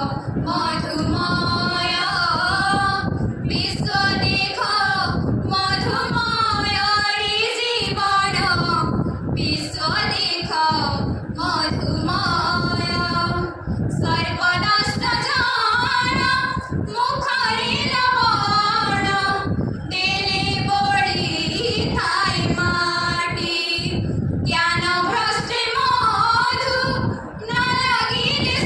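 Young female voice singing an unaccompanied song into a microphone, amplified through loudspeakers. The phrases last a few seconds each, with short breaks for breath between them.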